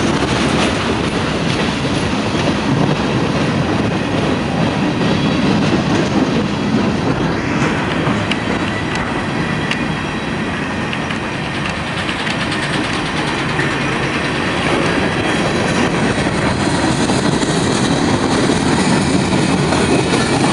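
Freight cars of a long, slow-moving train rolling past close by: steady rumble and rattle of steel wheels on rail, with repeated clicks from the wheels.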